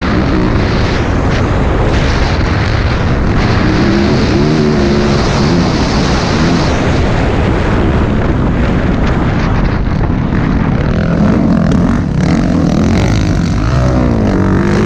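Dirt bike engine revving hard, its pitch climbing and dropping again and again as the rider works the throttle and shifts, over a loud steady rush of noise.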